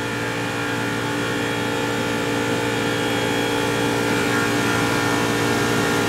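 Water source heat pump running in cooling mode: a steady mechanical hum with several steady tones, growing gradually a little louder.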